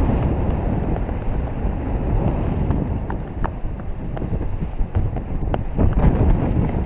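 Wind rushing over a paraglider pilot's camera microphone in flight: a steady, rumbling wind noise, heaviest in the low end, swelling and easing in gusts.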